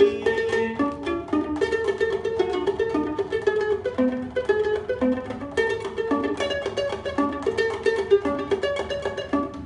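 Instrumental music: a plucked string instrument plays quick runs of notes over the band.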